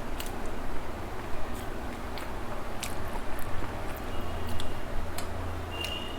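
A person chewing a mouthful of food close to the microphone, with scattered small wet clicks of the mouth.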